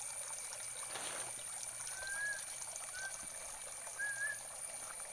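Water pouring steadily from a pipe outlet into a tarpaulin-lined aquaponic fish pond, heard faintly as a continuous splashing trickle. Three short bird chirps come over it at about two, three and four seconds in.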